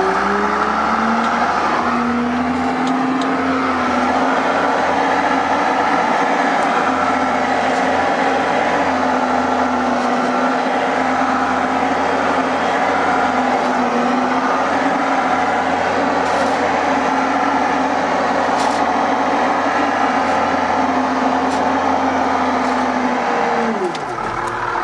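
Cab noise of a Case 325 articulated haul truck driving on a dirt haul road: its diesel engine running steadily under load, the engine note rising and dipping slightly now and then.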